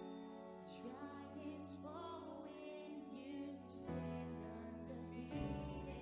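Live worship band playing slow, gentle music: sustained keyboard-like chords over a bass line, with a wavering melody line on top. The chords change about four seconds in and again near the end.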